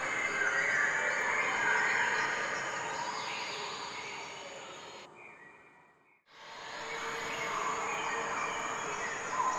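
Outdoor background noise with a thin, steady high-pitched whine. It fades out about five seconds in to a moment of silence, then fades back in.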